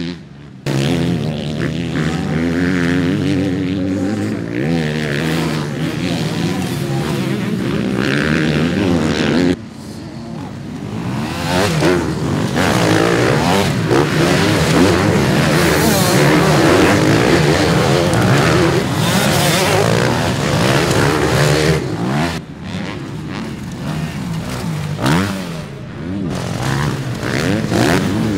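Motocross dirt bikes' engines revving up and down as they race on a dirt track: first mostly one bike rising and falling in pitch, then from about ten seconds in the louder, denser sound of a whole pack of bikes accelerating together.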